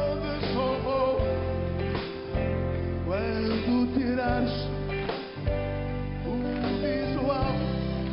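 Male lead vocalist singing a pop-rock song in Portuguese, backed by a live band of electric guitars, bass and drums with a steady beat.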